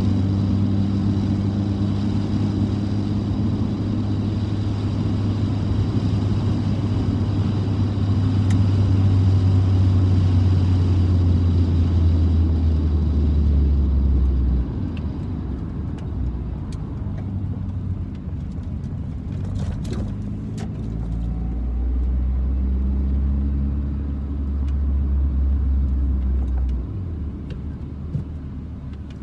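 1991 Honda Prelude Si's four-cylinder engine and road noise, heard from inside the cabin while driving. The steady engine drone drops away about fifteen seconds in, comes back about twenty-one seconds in, and eases off again near the end.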